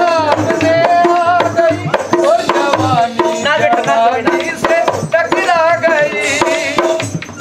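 A man singing a folk song with wavering, drawn-out notes over steady hand strokes on a dholak barrel drum, a held drone tone beneath.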